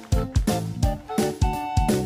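Background music: an upbeat tune of pitched notes over a steady beat, about three to four notes a second.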